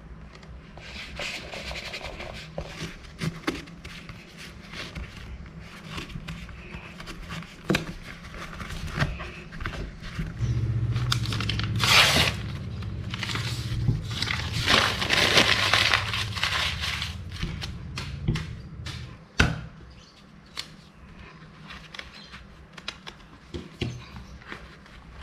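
Hand-handling sounds on a leather wallet: a wooden edge slicker rubbing along the leather edge, then a paper pattern sheet rustling loudly, and small clicks as plastic cards slide into the wallet's card slots.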